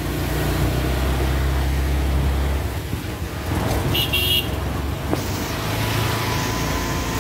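CNG auto-rickshaw engine running, heard from inside the open-sided cabin, with a short, high-pitched horn toot about four seconds in.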